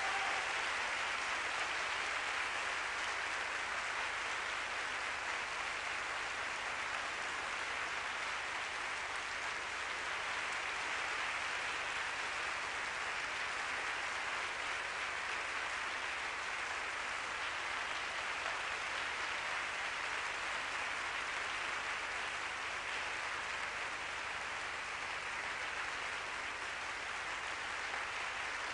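Theatre audience applauding, a long steady ovation of many hands clapping that eases off only slightly.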